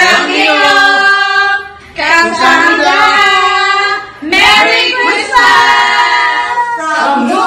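A small group of voices, mostly women's, singing together without instruments, in three held phrases with short breaths between them.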